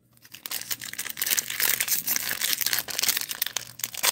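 Foil wrapper of a Donruss basketball hobby pack crinkling and tearing as it is opened by hand: a dense run of crackles starting about half a second in.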